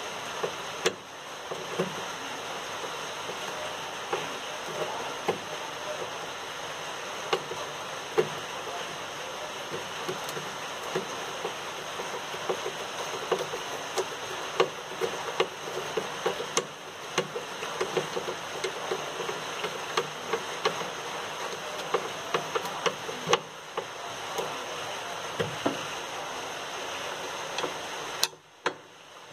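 Irregular light knocks and clicks of parts and tools being handled, over a steady hiss.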